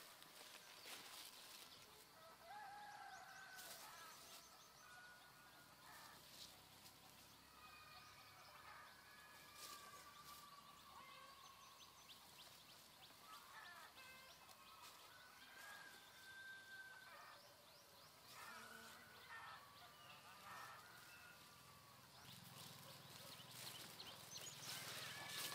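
Faint bird calls, short chirps and whistled notes scattered throughout, with a few soft rustles and scrapes of hands working dry soil.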